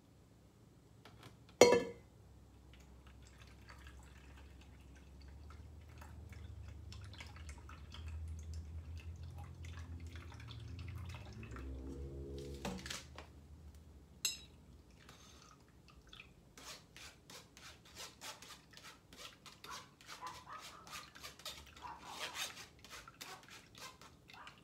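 A sharp metal clank of stainless steel bowls about two seconds in. Then, over the second half, a spoon scrapes and stirs pulpy cucumber juice through a metal mesh strainer in quick repeated strokes, with a brief metallic ring in between.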